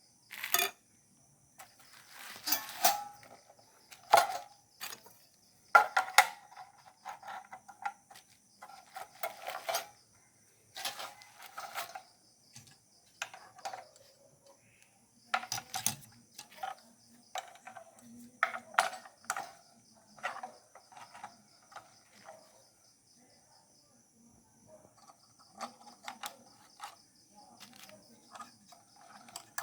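Irregular clicks, knocks and light metallic clinks of computer hardware being handled while assembling a PC on an LGA 775 motherboard.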